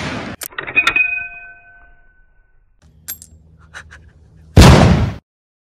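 A brass cartridge case drops onto the concrete shooting bench with a bright metallic ring that fades over about a second. A few faint metallic clicks follow, then a loud gunshot near the end.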